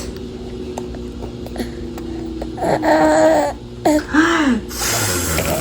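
Baby girl vocalizing while being fed purée: a high held squeal in the middle, then a shorter rising-and-falling cry, followed near the end by a breathy noisy sound, over a faint steady hum.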